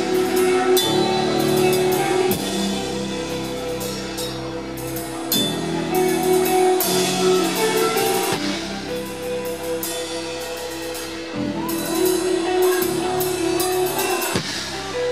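Live rock band playing: electric guitars hold sustained chords over drums and crashing cymbals, the chords changing every few seconds.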